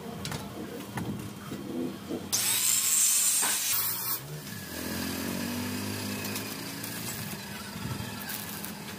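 An angle grinder working on steel tube. A few light metal clinks come first, then a loud grinding burst of about two seconds starting a little after two seconds in, then a steadier, quieter running sound.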